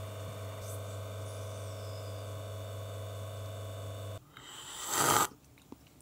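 Lelit Bianca V3 espresso machine's rotary pump running steadily while pulling a shot, a low hum that cuts off suddenly about four seconds in. About a second later comes a short breathy sound.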